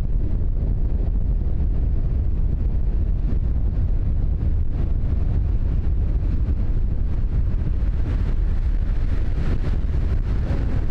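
Storm wind blasting the microphone as a steady, heavy low rumble, with big surf breaking on the shore underneath it.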